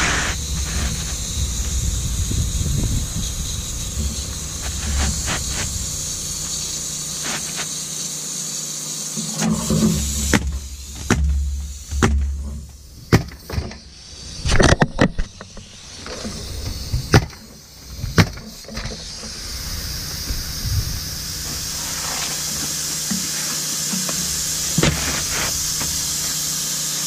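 Asphalt roof shingles being handled and pressed into place by a gloved hand. There are scrapes and knocks, clustered in the middle, over a steady background hiss.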